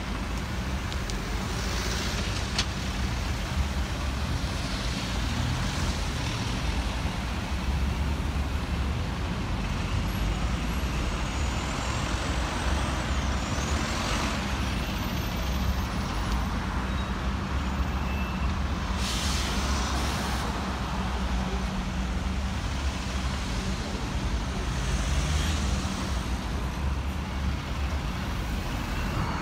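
Diesel buses running at low speed in a slow queue, a steady engine rumble, with several short hisses of air brakes releasing; the longest hiss comes about two-thirds of the way through.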